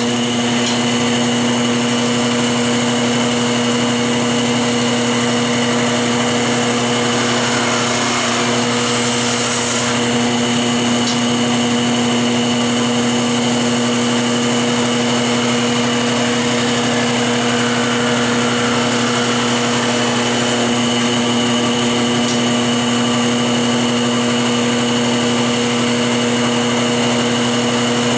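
Wood lathe motor running with a steady hum while a turning tool cuts a spinning blank of hard hickory, with a constant hiss of wood being cut away as shavings fly.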